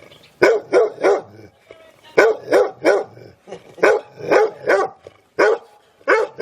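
Dog barking angrily in quick runs of three sharp barks, the runs repeating about every second and a half, with a single bark near the end.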